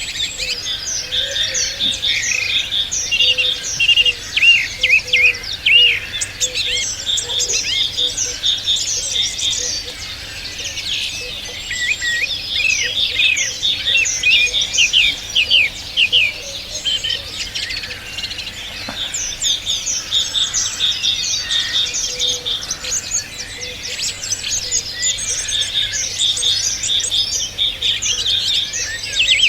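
Several small songbirds singing and chirping at once, a dense overlapping chorus of quick trills, rapid repeated notes and short rising and falling whistles.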